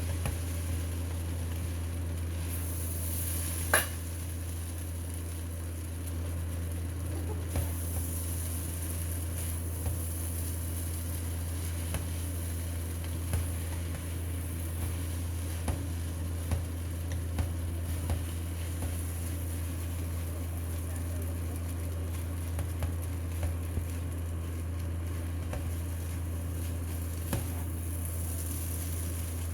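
Fried rice vermicelli being stirred in a pan: a steady sizzle over a low hum, with scattered clicks of the utensil against the pan and one sharp knock about four seconds in.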